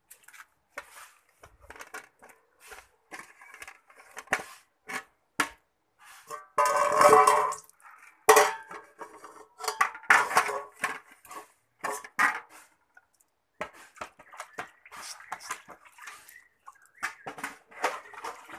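A wet cloth rubbing over a metal tray, with irregular clinks and knocks of the metal dish against the ground and basins; the loudest stretch of scrubbing comes a little after the middle.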